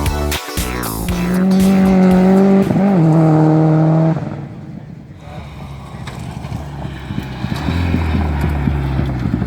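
Rally car engine held at high, steady revs with a brief dip in pitch, cutting off about four seconds in. A quieter, uneven low engine rumble follows.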